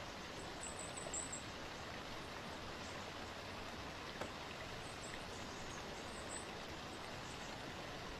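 Steady rushing of a waterfall, with a few faint high bird chirps about a second in and again around six seconds.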